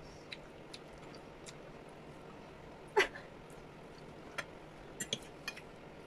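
Quiet room with a few faint clicks of a fork against a plate as a forkful of scrambled egg is scooped up, and one short, louder sound about three seconds in.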